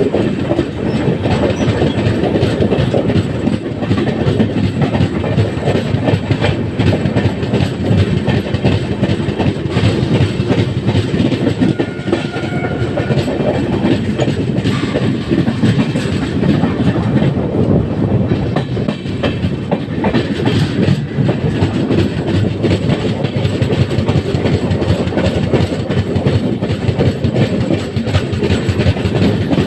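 Passenger train running along the track: a steady rumble of wheels on rails with clickety-clack over the rail joints.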